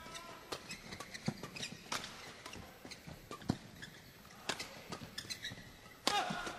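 Badminton rackets striking a shuttlecock in a fast doubles rally: a quick, irregular run of sharp hits. A louder burst of crowd noise comes near the end.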